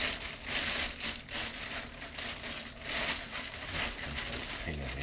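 Clear plastic bag crinkling and rustling in irregular swells as a rifle is pulled out of it.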